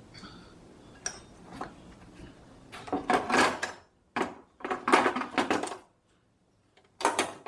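Metal parts and tools clanking and rattling in several short bouts, with a few light clicks before them.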